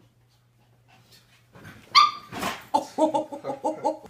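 Two dogs playing: a sharp, high yelp about two seconds in, followed by a quick run of short barks and growls.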